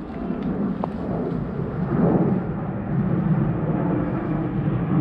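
Aircraft flying over, a steady low rumble that grows louder about two seconds in.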